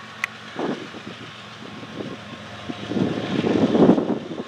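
Wind buffeting the microphone in irregular gusts, loudest near the end, over the low steady hum of an approaching Norfolk Southern diesel freight locomotive. A single sharp click a moment in.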